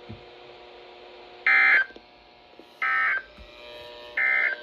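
Three short bursts of Emergency Alert System SAME digital data tones, each under half a second and about 1.3 seconds apart. This is the end-of-message code that closes the alert.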